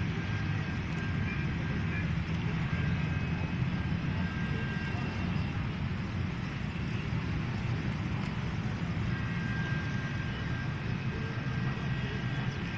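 Steady low engine rumble from distant vehicles, with faint thin tones that come and go.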